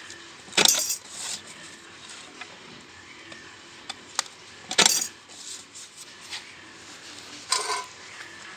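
Hand-lever sheet-metal notching shear cutting the corners of a thin sheet-metal blank: three sharp metallic cuts, about a second in, near the middle and near the end, with small clicks and rattles of the sheet between.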